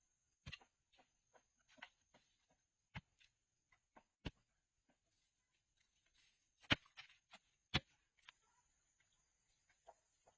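Scattered light clicks and knocks at irregular intervals, the two sharpest about two thirds of the way in, over a faint steady high-pitched hum.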